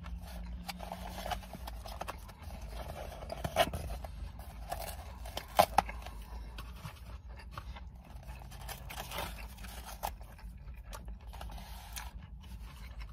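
Paper wrapper of a wrap rustling, scraping and tearing as it is peeled open by hand, with a couple of sharp crackles about three and a half and five and a half seconds in, over a steady low hum.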